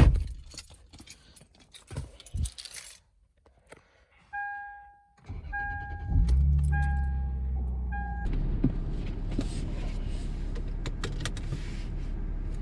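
Keys jangling and clicking, then a car's dashboard warning chime beeping about once a second while the engine cranks and starts about six seconds in, settling into a steady idle.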